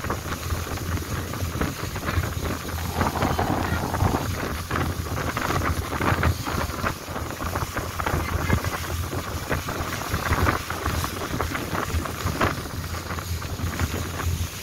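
Long-tail boat under way: the engine's steady drone beneath wind buffeting the microphone and water rushing past the hull.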